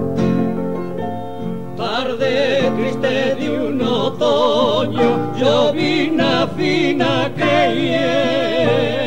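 Piano accompaniment, then about two seconds in a male vocal duo comes in singing an Argentine folk tonada in two-part harmony with wide vibrato, the piano continuing beneath.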